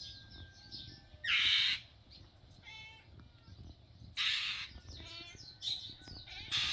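A bird mobbing a cat, giving loud, harsh, rasping calls in four short bursts with quicker rattling call series between them.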